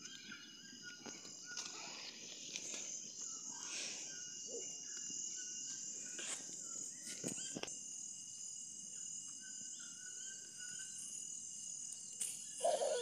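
Evening insect chorus: several steady, high-pitched trills, with a few short chirps and some brief clicks over it.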